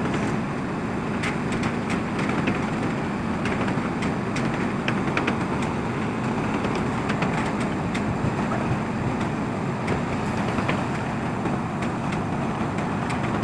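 Steady machinery rumble with scattered sharp clicks.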